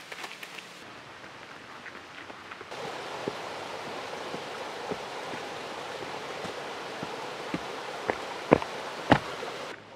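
Hiking boots stepping on a rocky, stone-paved trail, coming closer and getting louder. There are two heavy steps close by near the end, over a steady background hiss.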